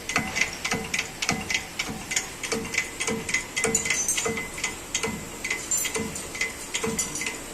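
Hand-pumped hydraulic shop press being pumped stroke after stroke, giving a regular click with a short squeak about two to three times a second, as it slowly presses a new wheel bearing into the steering knuckle.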